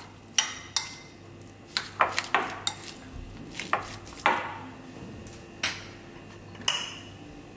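Metal spoon clinking and scraping against a glass mixing bowl while boiled potato and chopped onion are mashed together: irregular sharp clinks, several in quick succession at times, thinning out toward the end.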